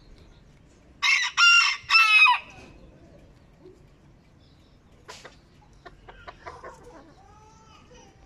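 Barbu d'Anvers bantam rooster crowing once about a second in, a short high-pitched crow in three linked parts. Afterwards a few light taps and a soft cluck near the end.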